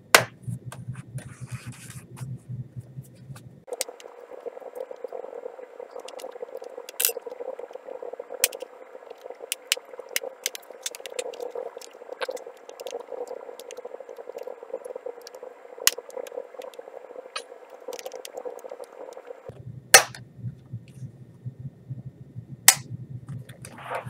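Plastic retaining clips of a Lenovo ThinkPad T450 base cover clicking and snapping loose as it is pried off with a plastic pry tool, with light scraping. Scattered sharp snaps, the loudest about a second in and twice near the end.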